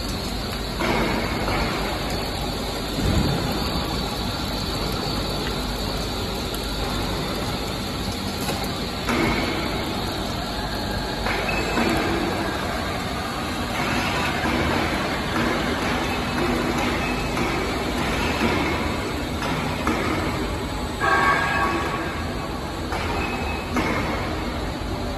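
Running noise of a plastic pipe extrusion line: steady machinery hum and rushing with a faint high steady whine, and louder swells of rushing noise every few seconds.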